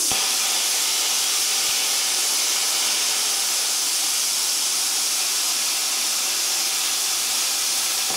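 Luch Profi CUT-50 air plasma cutter, set to 40 amps, cutting through a piece of metal: a loud, steady hiss of the compressed air and plasma arc that starts abruptly.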